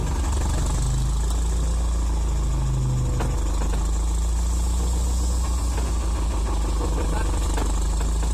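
Diesel engine of a Waryński K-406 excavator running steadily with a low drone, with a couple of faint clicks about three seconds in and near the end.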